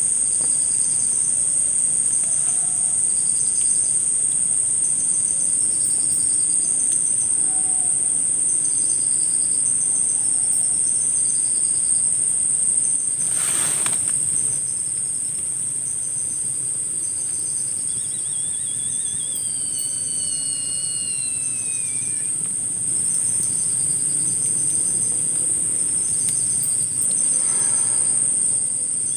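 Night forest insect chorus: a steady high drone with pulsing cricket chirps throughout, and a short burst of noise about halfway. About two-thirds of the way in, two long, high, wavering calls slide down in pitch, overlapping, and another begins near the end. The uploader identifies these calls as a civet (musang) that comes out at night to forage.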